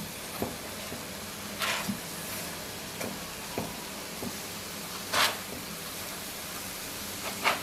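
Vegetable rolls frying in oil on an electric baking pan: a steady sizzle, flaring three times into short louder hisses as rolls are turned over by hand onto the hot oil, with a few light taps in between.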